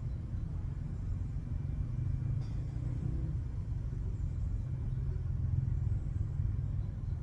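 Low, steady outdoor rumble with little higher-pitched sound.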